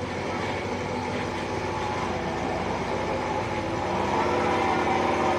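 A large engine running steadily with a continuous low rumble, getting slightly louder about four seconds in.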